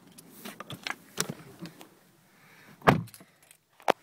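Scattered small clicks and rustles of handling inside a car cabin, with one loud sharp knock about three seconds in and a shorter sharp click near the end.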